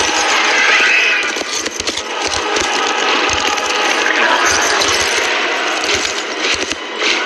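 Horses galloping hard: a quick, irregular run of heavy hoof thuds with a dense clatter and jingle of tack over them.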